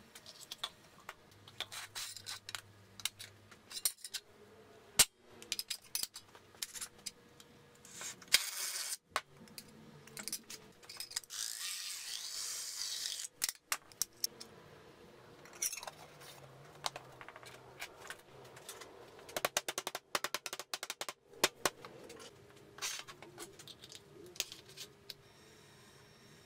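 An empty tin paint can and its metal lid being handled and fitted: scattered metallic clicks, taps and knocks, with two longer scraping rubs near the middle.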